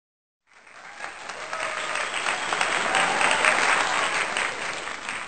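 Applause from a crowd, many hands clapping, swelling over the first couple of seconds and fading toward the end.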